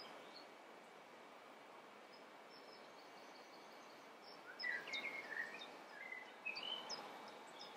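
Faint bird chirping over quiet room hiss: a run of short, high notes starting about halfway through and lasting a few seconds.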